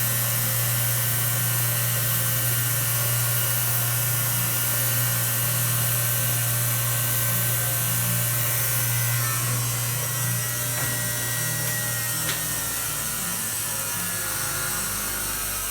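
Crankshaft polishing machine running steadily, the crank turning against fine-grit abrasive: a steady motor hum with a rubbing hiss on top, easing slightly about ten seconds in.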